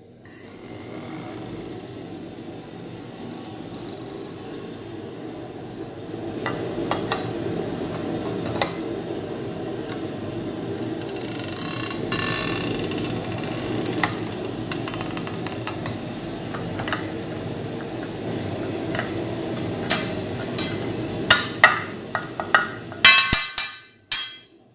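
Scroll-bending machine running steadily while it winds a red-hot steel bar into a scroll; the running noise grows louder about six seconds in. Scattered sharp metal clicks, then a quick rattle of metal clinks near the end.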